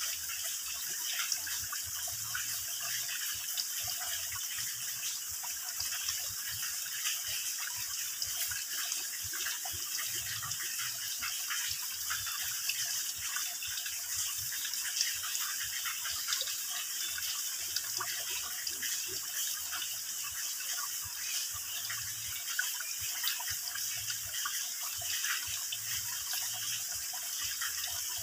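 Water trickling and dripping from a mossy rock overhang into a shallow pool: a steady gurgle with a dense, irregular patter of small drips and splashes.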